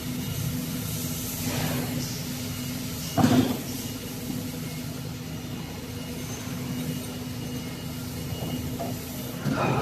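Steady machine hum with a faint high whine, broken by a brief loud knock about three seconds in and a second rise in level near the end.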